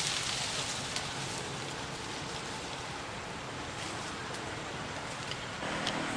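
Steady outdoor background hiss with a few faint clicks; it steps up a little and changes character near the end.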